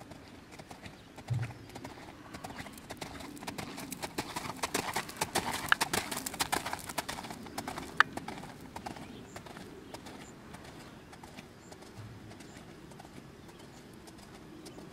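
Hoofbeats of a Trakehner gelding trotting on a gravel arena, a steady run of crunching footfalls that grow loudest about halfway through as the horse passes close.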